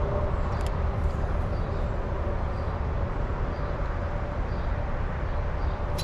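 Steady rumble of interstate highway traffic, with a faint steady hum above it.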